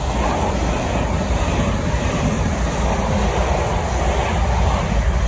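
Two coupled Class 444 Desiro electric multiple units passing close by at speed: a steady rumble and rush of wheels on rail.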